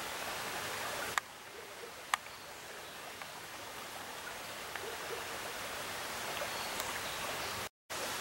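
Steady hiss of outdoor background noise, with two sharp clicks about one and two seconds in. The sound breaks off for a moment near the end.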